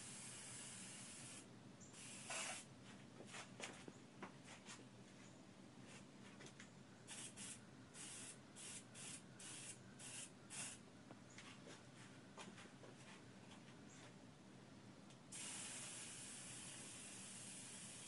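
Aerosol-propellant spray bottle from a DuraCoat kit spraying a coat of finish onto rifle parts. It hisses steadily, then gives many short spurts, then hisses steadily again near the end.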